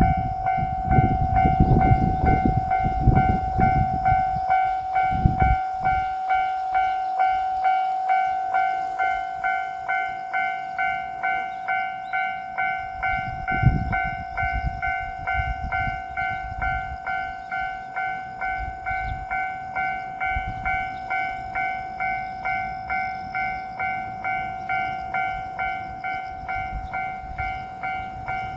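Japanese railroad crossing warning bell ringing steadily at about two strokes a second. A low rumble runs under it for the first five seconds, and a single thump comes about fourteen seconds in.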